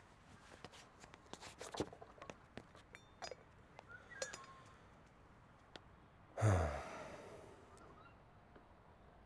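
Scattered light clicks and knocks, then a brief sound that sweeps down in pitch into a low thud about six seconds in, with faint bird chirps.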